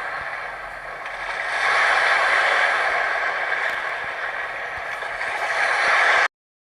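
Sea waves washing ashore, a rushing noise of surf that swells and eases in slow surges, then cuts off suddenly near the end.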